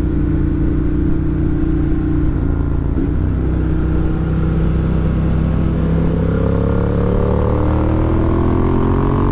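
2018 Ducati Monster 1200 S's L-twin engine heard from the rider's seat, running steadily at first and then rising steadily in pitch over the last few seconds as the bike accelerates, with wind rushing over the microphone.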